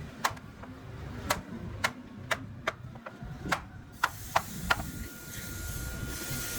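A series of sharp knocks, about nine over five seconds at an uneven pace, followed about five seconds in by a faint, steady high whine.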